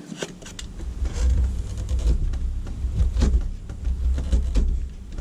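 Razor knife shaving thin slivers off a wooden window frame: a run of irregular short scraping strokes, over a steady low rumble.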